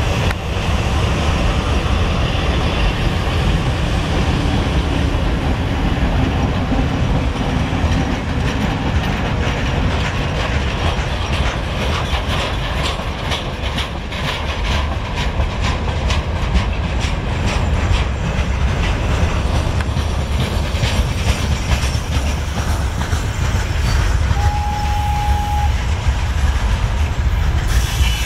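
Freight train hauled by a VL8m electric locomotive passing close by: a deep, continuous rumble with clickety-clack of wheels over the rail joints. The clacking is densest around the middle, as the locomotives and first wagons go by. A brief steady high tone sounds near the end.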